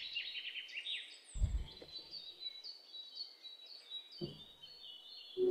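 Birds chirping in the background, a run of short high chirps and trills, with two soft knocks about a second and a half in and about four seconds in as the spatula is worked in the pan.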